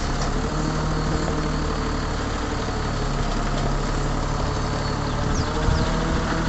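Iveco 240E28 truck's diesel engine running steadily while driving the hooklift's hydraulics to pull the flatbed aboard, with one short knock about five and a half seconds in.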